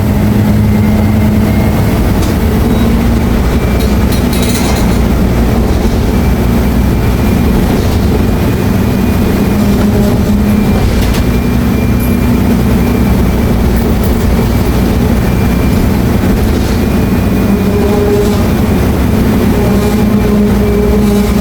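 Mercedes-Benz OF-1724L city bus running under way: a steady, loud low drone of the diesel engine and drivetrain with a constant hum, without marked revving.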